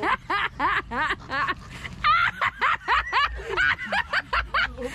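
People laughing hard, a fast run of short, high ha-ha sounds.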